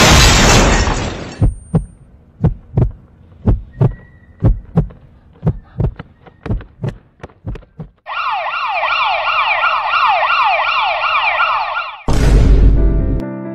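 Dramatic sound effects: a loud rushing noise, then a heartbeat thumping in lub-dub pairs about once a second and growing fainter, then a siren wailing in rapid repeated rising sweeps for about four seconds. Another loud whoosh cuts the siren off, and soft piano music begins near the end.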